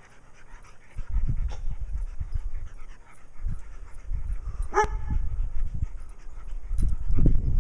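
A dog gives one short bark about five seconds in, over a low rumbling noise.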